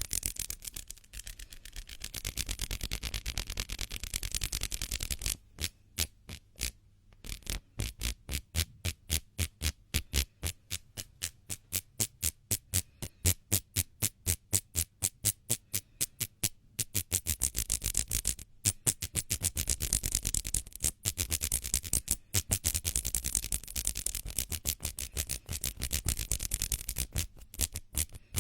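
Close-miked hands rubbing together for ASMR: a continuous rubbing hiss, then quick separate strokes about three a second from about five seconds in, turning back to steady, dense rubbing after the middle.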